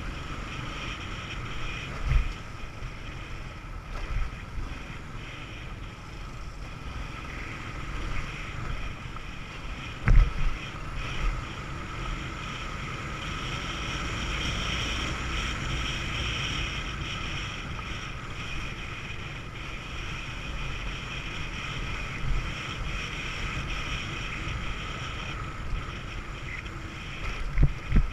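Moped engine running steadily while riding, with wind rushing over the microphone and a few thumps from bumps on a rough dirt track, the loudest about ten seconds in and two more near the end.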